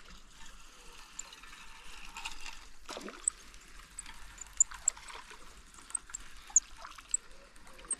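Water pouring and trickling, with scattered sharp little ticks and a few louder clicks.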